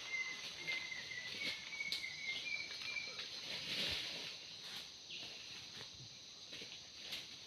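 Steady high-pitched drone of forest insects such as crickets, with a run of short repeated chirps that climb slightly in pitch and stop about three seconds in, and a few scattered light clicks.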